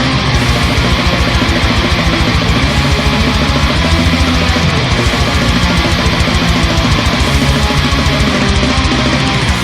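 Heavy metal music with distorted electric guitar and a drum kit, loud and steady.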